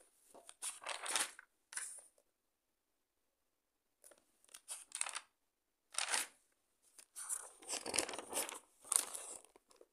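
Pages of a ruled paper notebook being turned and handled, the paper rustling in several short bursts with silent gaps between, the longest near the end.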